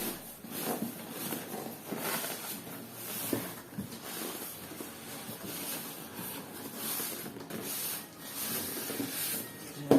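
Packaging rubbing and rustling in irregular swells as a boxed printer is worked slowly out of its carton.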